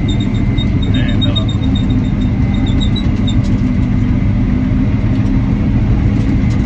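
Komatsu D65 crawler dozer's diesel engine running steadily under load, a loud, even low drone heard from inside the cab.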